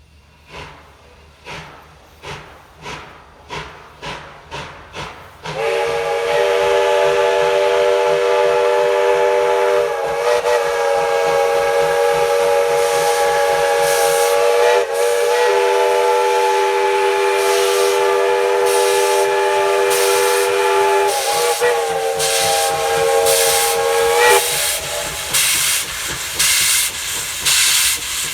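Tweetsie Railroad steam locomotive No. 190 working, its exhaust chuffing faster and faster, then sounding its multi-tone chime whistle in one long blast of about nineteen seconds, with a few brief dips in pitch. The exhaust chuffs carry on under the whistle and after it stops.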